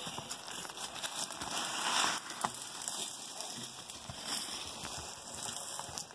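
Dry brush, twigs and leaves crackling and rustling as a pack mule loaded with wooden planks pushes through the undergrowth. The sound is dense with small snaps and is loudest about two seconds in.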